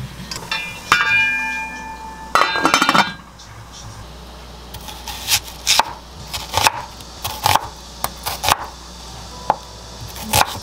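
Metal cookware clinking and ringing in the first couple of seconds, then a loud metallic clatter of a stainless steel pot and steamer about two and a half seconds in. From about five seconds on, a chef's knife cuts through an onion onto a wooden cutting board in separate, irregular strikes.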